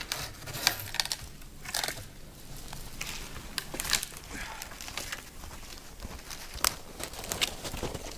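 Footsteps crunching through snow and dry brush, with irregular snaps and crackles of twigs and branches.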